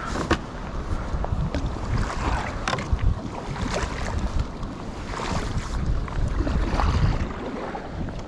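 Wind buffeting the microphone over the sound of the sea, with a low rumble, plus scattered small clicks and knocks from handling fishing tackle.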